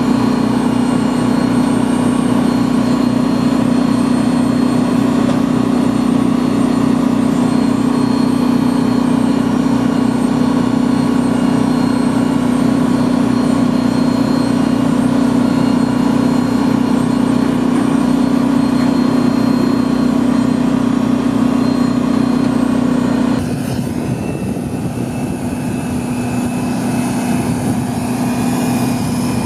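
Steady engine drone, an even hum with a high whine over it. About 23 seconds in it cuts abruptly to a quieter, rougher drone.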